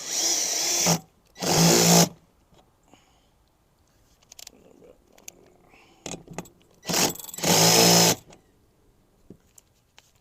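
Power drill running in short bursts, twice near the start and twice again about seven seconds in, driving bolts tight.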